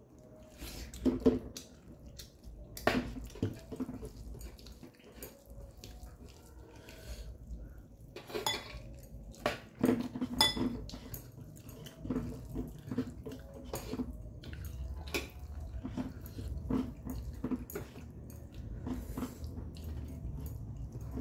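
Eating by hand from a metal plate: chewing, and fingers mixing and scraping rice and curry against the plate, heard as scattered irregular clicks and taps.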